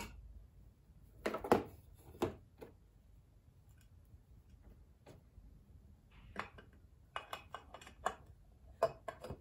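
Sharp metal clicks and clinks from hand tools and engine parts being handled while the valve cover is swapped on a 50cc GY6 scooter engine: scattered single knocks, with a quick run of clicks about seven to eight seconds in.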